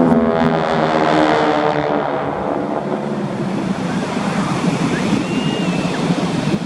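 Aircraft engine passing overhead, its note sliding down in pitch over the first two seconds or so as it goes by, then giving way to a steady rushing noise.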